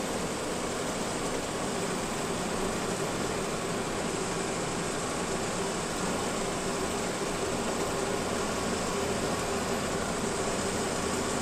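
Steady running noise of a lorry heard from inside its cab while driving: engine drone and road noise blended into an even hiss, with a faint steady hum throughout.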